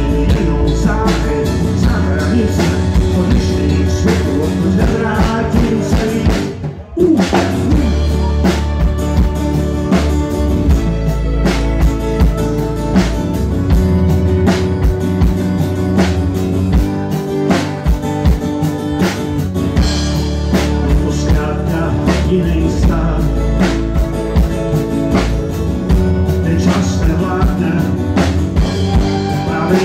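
A small rock band playing live: electric bass, acoustic guitar and drum kit, with a man singing. The sound drops out for a moment about seven seconds in.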